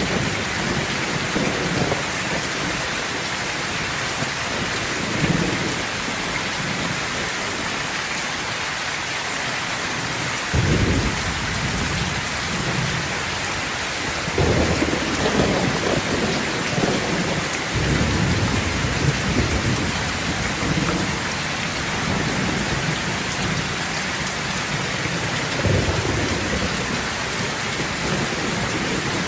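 Steady heavy rain hissing, with rolls of thunder rumbling through it again and again; the biggest rolls break in about ten, fourteen and eighteen seconds in.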